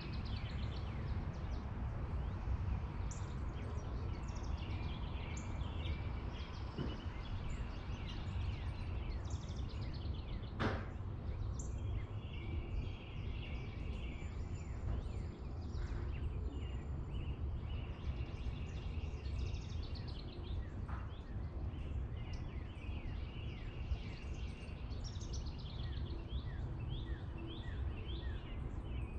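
Steady low outdoor rumble with small birds chirping and trilling in the background throughout, and a single sharp click about ten seconds in.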